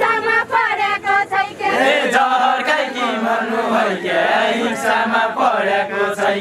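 A group of men singing a Far-western Nepali nyaulya folk song together in a chanted style, several voices on one melody.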